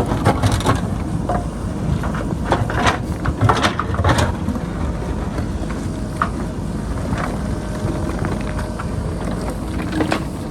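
JCB backhoe loader's diesel engine running steadily under load, with irregular sharp knocks and scrapes of the bucket against rocks and boulders, most of them in the first half.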